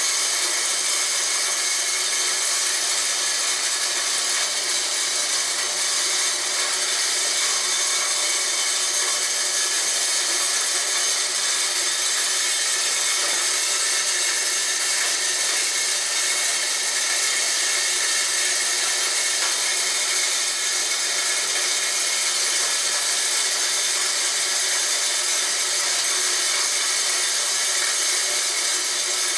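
Homemade corn grinder built from a water pump, running steadily as it grinds corn: a constant high-pitched grinding hiss with a steady whine.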